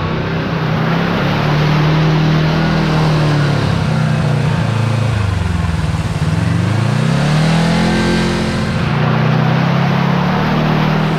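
Kawasaki Teryx KRX4 1000 side-by-side running along a trail. The engine eases off about a third of the way in, then revs back up and holds steady.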